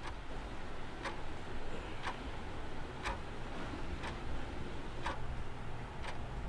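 Clock ticking steadily, about one tick a second, over a low steady rumble.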